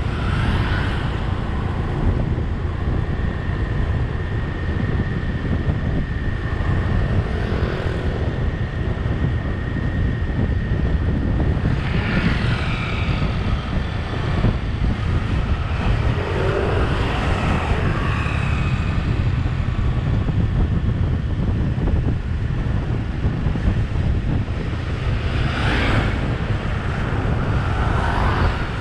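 Steady road and engine rumble from a vehicle driving along a street, with a faint steady whine in the first third and a few brief swells as other traffic passes.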